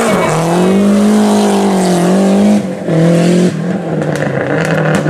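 Rally car engine running hard at high revs, its pitch dipping sharply twice, about two and a half and three and a half seconds in.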